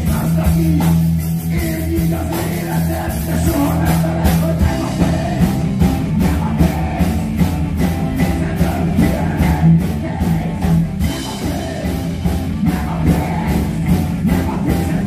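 Rock music played by a band on drum kit, bass guitar and electric guitar, with a steady drum beat that gets busier about four seconds in.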